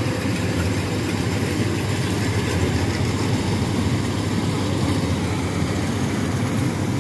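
Rice combine harvester (the '95' model) running steadily as it cuts through the field, its engine and threshing machinery making a constant drone.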